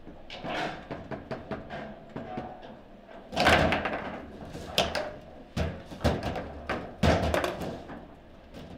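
Table football in play: the ball and the plastic figures on the rods clack and bang against each other and the table walls in a string of sharp knocks, the loudest about three and a half seconds in.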